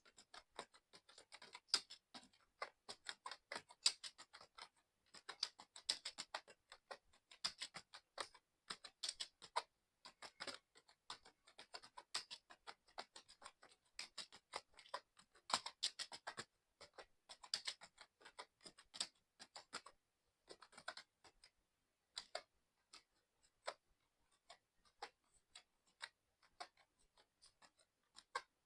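Fast, continuous typing on a mechanical keyboard: a dense, irregular run of keystroke clicks that thins out somewhat about two-thirds of the way through.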